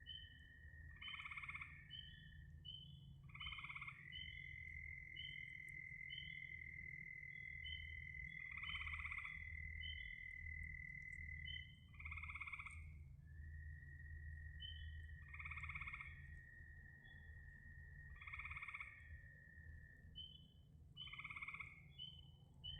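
Frogs calling in a night chorus: a long steady trill held for several seconds at a time, short high peeps repeating a few times a second, and a louder call about every two to three seconds, over a low steady rumble.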